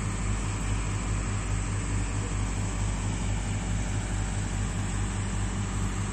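Steady low hum of a running motor with a fast, even throb, over a wide faint hiss.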